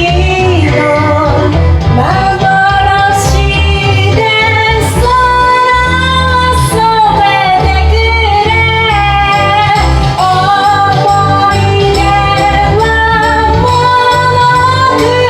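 A woman singing along to a karaoke backing track, holding long notes over a steady beat.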